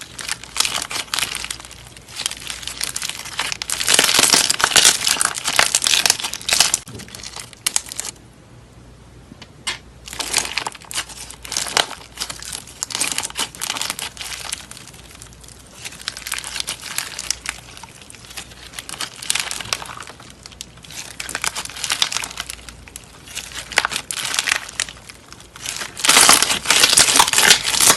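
Slime being squeezed and pressed by hand, giving dense crackling and popping in bursts, with a quieter pause about a third of the way in.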